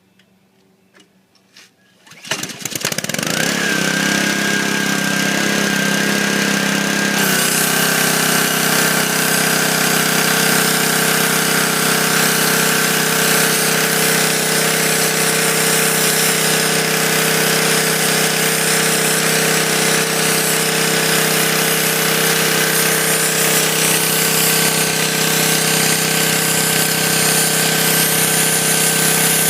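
Pressure washer starting up about two seconds in and then running steadily, its sandblaster attachment spraying a hissing jet of water and sand to strip a tractor fender. The sound changes about seven seconds in.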